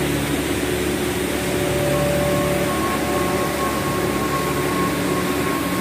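Large waterfall: a loud, steady rush of water falling onto rocks.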